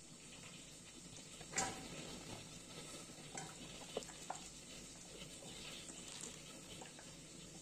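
Fresh spinach leaves rustling as they are pushed by hand from a steel bowl into a pressure cooker, with a sharp clink about one and a half seconds in and a couple of lighter ticks around four seconds.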